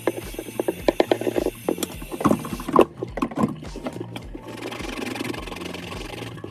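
Handling clicks and knocks, then from about four and a half seconds a steady rubbing noise, like scrubbing at a shirt's printed number, over background music.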